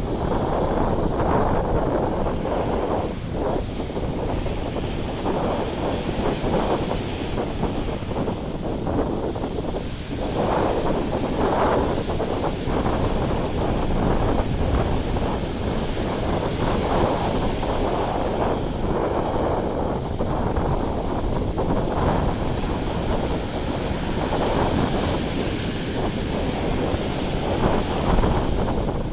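Wind buffeting the microphone over the rush of sea surf, a steady noise that swells and eases in gusts.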